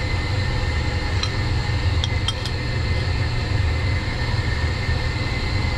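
Steady low hum of running boiler-room machinery, with a few light metallic clinks about one to two and a half seconds in as an adjustable wrench tightens a pressure-gauge fitting on a hydronic circulating pump.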